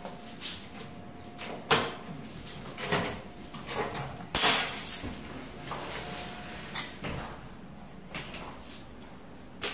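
Framed glass sliding-door panels being shifted and knocked into line on their track while they are aligned: a string of irregular knocks, clicks and scrapes, about eight in all.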